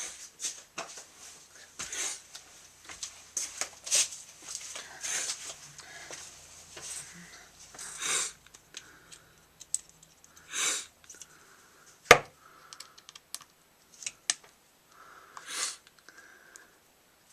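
Metal Allen wrenches clinking and clicking as they are handled and sorted, with scattered sharp clicks and one loud snap about twelve seconds in. A few sniffs come between.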